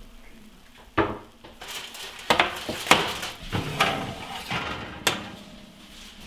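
Dishes and utensils being handled, with a handful of sharp clinks and knocks and some lighter clatter between them.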